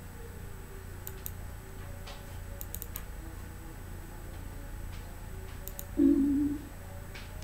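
Computer mouse clicking several times, in quick pairs and small clusters, over faint music. About six seconds in comes a brief, much louder low wavering tone.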